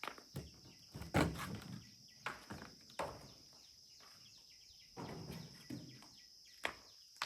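Steady high chirring of a night insect chorus, crickets, under a string of sharp clicks and knocks. There are two longer rustling scuffs, the loudest about a second in and another about five seconds in, of someone moving about or handling things.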